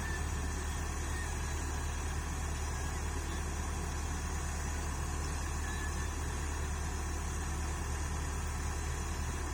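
Caterpillar excavator's diesel engine idling steadily with a low, even hum.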